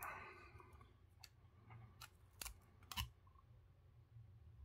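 Faint clicks and small handling noises from fingers pressing plastic port-cover strips onto the edges of a smartphone, against near silence. The two loudest clicks come about two and a half and three seconds in.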